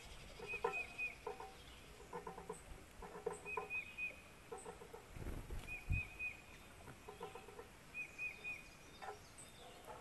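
Birds calling: a high three-note call repeating about every second and a half, over lower stuttering calls in short runs of three or four notes. There is a brief low rumble about six seconds in.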